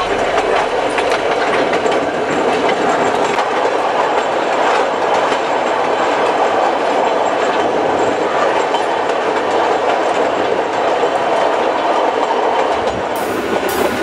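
White Pass and Yukon Route train rolling along, heard from aboard: a steady rumble of wheels on rail with irregular clicks and clacks over the rail joints.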